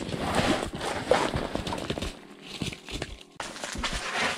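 Irregular rustling and scattered light knocks of clothing and fishing gear being handled as someone moves about, bringing a fish up through the ice.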